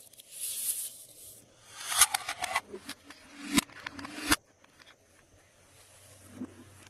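Glossy slime being worked by hand: a short soft rub, then sticky squishing and crackling with a few sharp popping clicks for about two and a half seconds, stopping suddenly about four seconds in.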